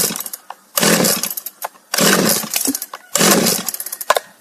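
GoodLuck GL4500C 45 cc two-stroke chainsaw being cranked on its pull-cord starter, three pulls about a second apart, the engine not catching. This is a first cold start without a primer bulb, when fuel is slow to reach the carburettor.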